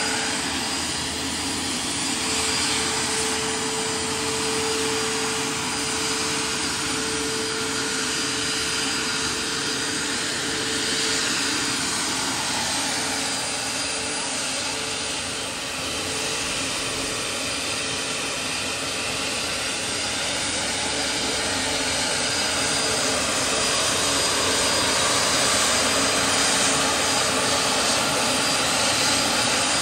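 Scale MD 600N RC helicopter with a model gas turbine and an electric ducted fan for the tail, in flight: a steady jet-like whine and rush of air with a steady hum held in it. It grows a little louder near the end.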